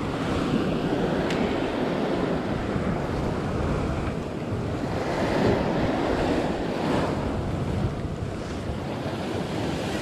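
Sea waves breaking and washing over a rocky shore directly below, an unbroken hiss of surf that swells louder with each wave.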